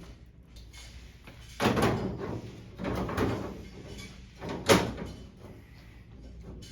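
Metal projector cage clunking and rattling as it is handled with a projector inside, three knocks with the last the sharpest.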